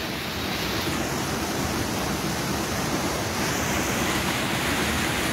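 Fast-flowing river water rushing steadily over rocks in a shallow, swollen stream.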